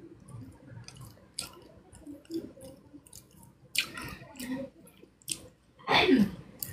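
Wet mouth noises close to the microphone: a woman's lip smacks and tongue clicks with a finger at her mouth, and two short vocal bursts about four and six seconds in, the second falling in pitch.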